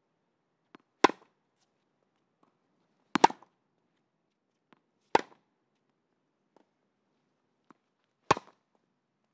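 Tennis ball struck by rackets in a rally: four sharp hits two to three seconds apart, with fainter taps of the ball between them.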